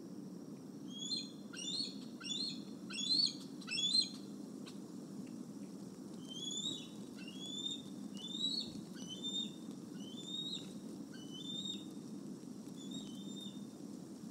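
Bald eagle giving a series of high, chirping calls: five louder ones in quick succession, then about eight softer ones spaced a little further apart. A steady low hum runs underneath.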